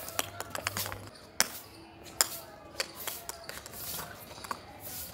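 Scattered clicks and knocks of a Labrador puppy playing with a small ball on a concrete floor: claws scraping and the ball tapping, with two sharper knocks a little over one and two seconds in.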